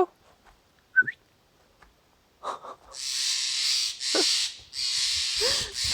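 An owl hissing: a run of harsh, breathy hisses, each just under a second long with short gaps between them. A short rising chirp comes about a second in.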